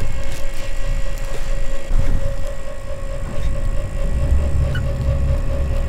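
Sportfishing boat's outboard engines running, with water churning along the hull: a steady low rumble with a faint engine hum, the rumble swelling about four seconds in.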